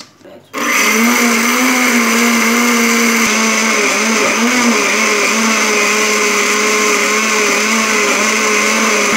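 Countertop electric blender switched on about half a second in and running steadily at high speed, blending chopped carrot and celery with water. Its pitch dips and wavers briefly a few seconds in as the load in the jar shifts.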